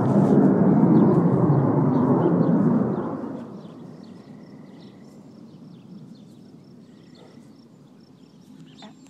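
Wind buffeting the microphone loudly, dying away about three seconds in and leaving small birds chirping faintly in the background.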